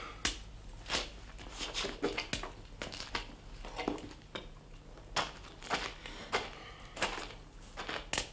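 Irregular clicks, knocks and rustles of a person shifting about and handling things, with a few duller thuds among the sharper clicks.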